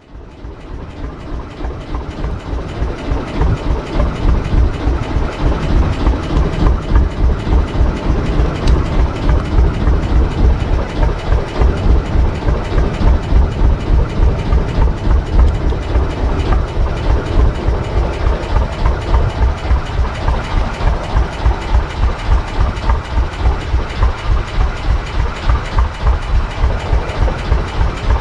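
A fishing boat's motor chugging steadily at trolling speed, an even beat of low pulses about three a second, fading in over the first few seconds.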